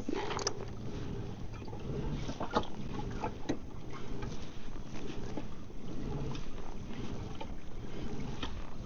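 Wind rumbling on the microphone over water lapping against a kayak hull, with scattered small knocks and taps.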